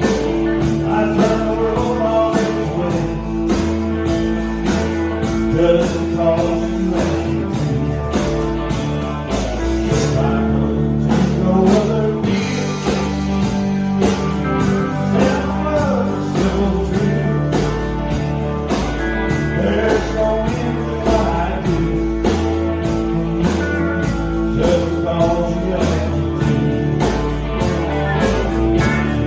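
Country-rock band music with a steady drum beat, bass and guitar, the cymbals dropping out briefly about ten seconds in.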